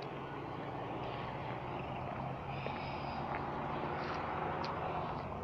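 Motor vehicle engine running, a steady low hum under outdoor street noise.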